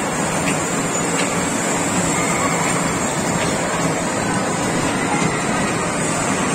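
Small electric kiddie train running along its floor-mounted steel track: a steady running noise with a few faint clicks.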